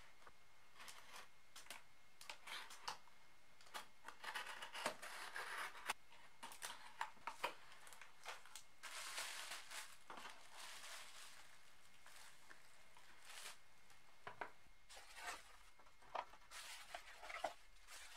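Quiet handling of a cardboard shipping box and its contents: flaps and cardboard scraping and tearing, with scattered taps and clicks as packaging is lifted out. Two longer rustling stretches come a few seconds in and near the middle.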